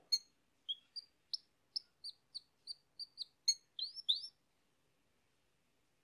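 Yellow domestic canary chirping: a run of about a dozen short, high notes, roughly three a second, ending in a couple of quick sliding notes about four seconds in, after which it stops.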